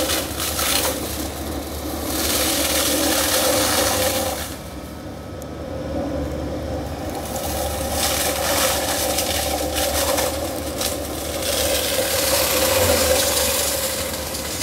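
Volvo compact excavator running with a hydraulic mulcher head shredding bamboo: a steady machine drone that swells into louder, noisier stretches about four times as the head chews into the stalks.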